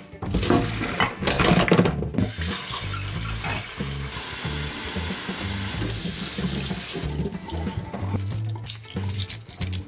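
Hot water poured from a pan into a stainless steel bowl in a steel sink, then a kitchen tap running onto boiled eggs in the bowl to cool them. Near the end the water stops and there are a few sharp knocks as eggs are handled. Background music plays underneath.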